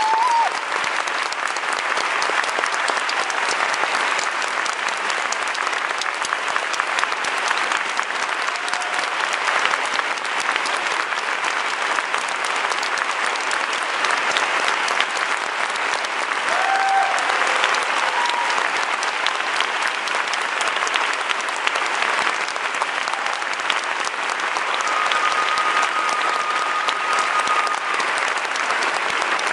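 Large theatre audience applauding steadily. A few short high tones rise above the clapping, and one is held for about three seconds near the end.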